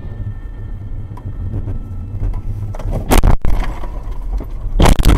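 Car crash heard from inside the car: a steady road rumble, then two loud impacts about three and five seconds in as the car strikes the roadside guardrail.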